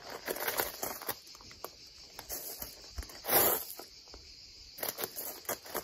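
Shoes crunching and scraping on gravel as a person steps and pivots, a run of small crunches with one louder scrape about three and a half seconds in.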